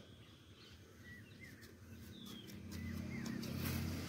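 Small birds chirping repeatedly in short calls. From about halfway through, a low engine hum grows steadily louder beneath them.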